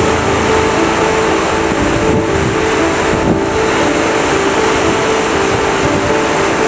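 A small fishing boat's engine running at a steady hum, under a wash of wind on the microphone and surf.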